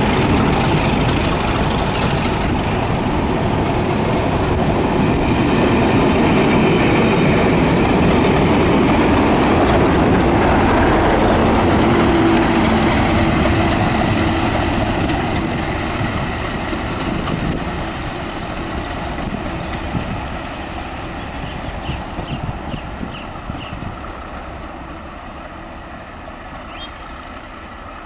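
BR Class 37 diesel locomotive running past at the rear of a train and drawing away, its English Electric diesel engine and wheels on the rails mixed together. The sound is loudest about ten seconds in, then fades steadily as the locomotive recedes.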